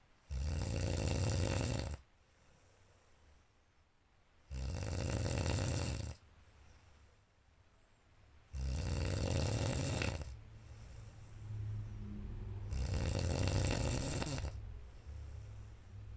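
A sleeping person snoring loudly: four long snores, each about a second and a half, coming about every four seconds, with a rough fluttering rattle to each.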